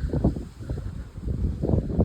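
Strong storm wind buffeting the phone's microphone as a low, gusty rumble. It eases in the middle and picks up again near the end.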